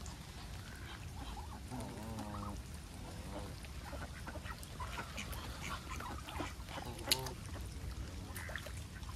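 Geese honking and ducks quacking, a series of wavering calls with many short calls in the middle, over a steady low rumble. A sharp click about seven seconds in.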